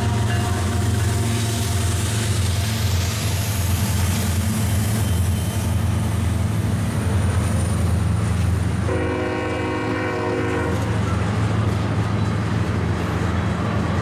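Freight train passing close by: the deep rumble of trailing diesel locomotives gives way to the rolling noise of tank cars on the rails. A train horn sounds once for about two seconds, a little past the middle.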